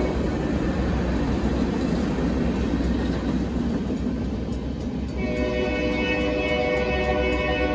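The last cars of a freight train rolling through a grade crossing, a dense rumble that thins out about four to five seconds in as the train clears. After that, steady pitched tones with a regular ticking take over.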